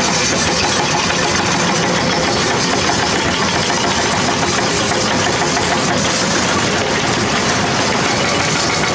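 Diesel engines of working excavators running steadily under load, a dense continuous engine noise.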